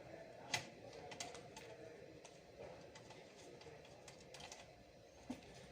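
Scattered light clicks and taps of computer parts being handled while a desktop PC is worked on, with one sharper click about half a second in and a duller knock near the end.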